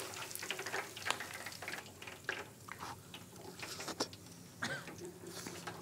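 Freshly deep-fried pork belly crackling faintly as it rests out of the oil: scattered small pops and ticks of hot fat, irregular and quiet.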